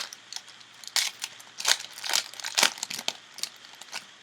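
Foil wrapper of a trading-card pack crinkling and crackling in quick irregular bursts as it is handled and torn open.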